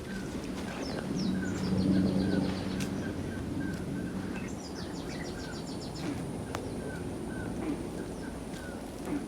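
Wild animal calls. Two runs of quick, high, falling chirps come through, with a steady repeated mid-pitched note throughout, and a louder low, steady-pitched call from about one to three seconds in.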